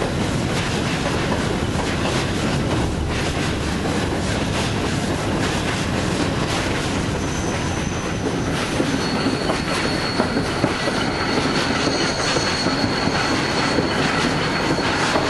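Steam-hauled train running over the rails, heard from on board: a steady rumble and clatter of wheels on track. From about seven seconds in, a thin, high wheel squeal joins it and lasts to near the end.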